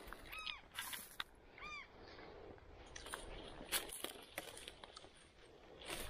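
A bird gives two short, arching call notes a little over a second apart in the first two seconds. Footsteps crunch now and then on dry leaf litter.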